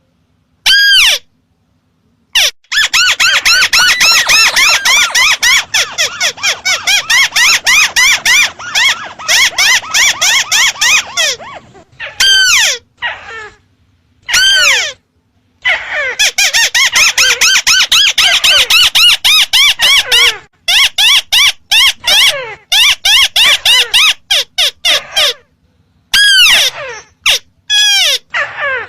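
Looped lure recording of ruddy-breasted crake calls: long rapid series of high, downward-sliding notes, with short single calls between. The series stop and start abruptly on dead silence.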